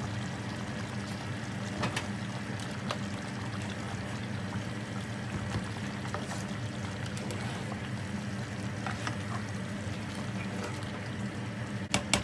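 Pot of tomato-sauce chicken stew simmering on the stove, over a steady low hum, with a few light clicks of a plastic spoon against the pot as it is stirred.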